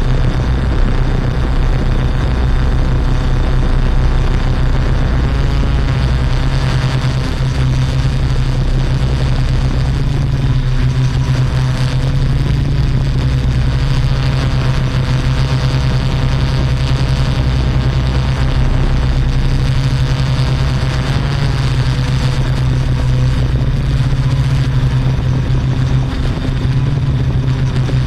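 Yuneec Typhoon Q500 4K quadcopter's motors and propellers whirring steadily in flight, their tones drifting slightly up and down in pitch.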